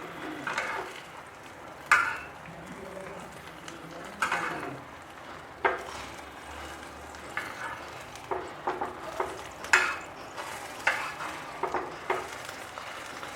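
A spatula scraping and knocking against a kadai, in a dozen or so short irregular strokes, as an omelette is turned and folded, with oil sizzling faintly underneath.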